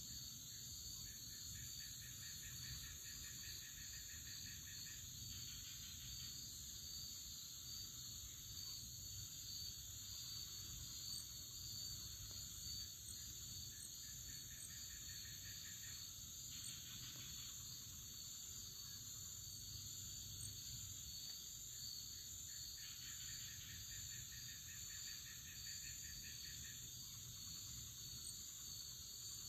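Faint chorus of insects chirring steadily at a high pitch, with a lower, rapidly pulsed trill that comes in three bouts of a few seconds each.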